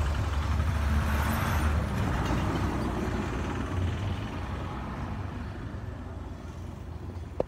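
A three-wheeled auto-rickshaw driving past on the road, its engine rumble fading away over several seconds. A single sharp tap near the end.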